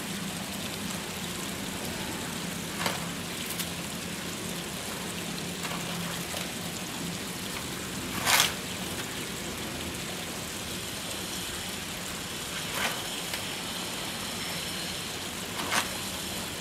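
Paper pages of a spiral-bound workbook being turned by hand, a few short rustles over a steady background hiss, the loudest turn about halfway through.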